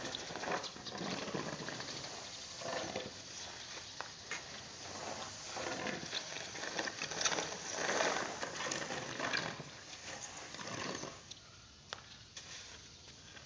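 Paddy (unhusked rice) being raked out to dry with a long-handled rake: repeated swishing, rustling strokes of grain dragged across the drying floor, dying down over the last couple of seconds.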